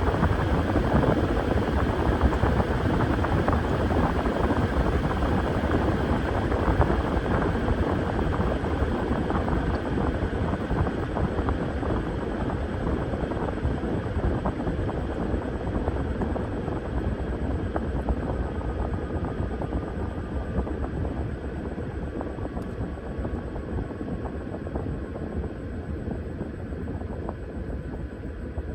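Washing machine running a cycle: a dense, churning mechanical noise with a fast rhythmic whoosh, slowly getting quieter.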